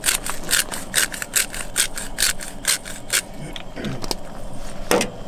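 Hand-twisted black pepper grinder cracking peppercorns over fish fillets: a rapid run of gritty clicks, about five a second, that stops after about three seconds. A single sharp click follows near the end.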